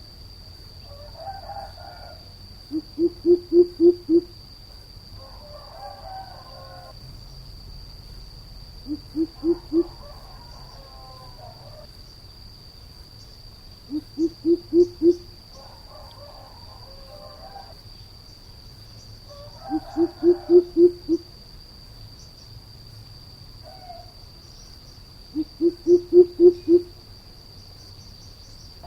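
Coucal calling: five runs of deep, hollow hoots, each run five to eight hoots in quick succession, coming about every six seconds.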